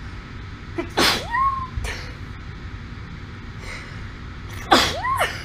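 A woman sneezing twice, about four seconds apart. Each sneeze is a sharp burst followed by a short voiced "choo", with a breathy intake of air before the second.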